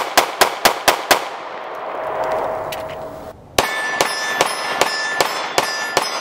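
9mm Glock pistol fire: a fast string of about six shots from a Glock G43X, roughly four or five a second, stopping about a second in and echoing away. About three and a half seconds in, a Glock G48 fires a slower string, about two or three shots a second, each followed by a metallic ringing.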